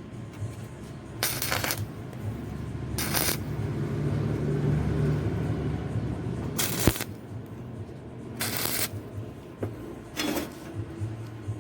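Electric arc welding in short tack welds: five brief crackling bursts, each about half a second, over a steady low electrical hum.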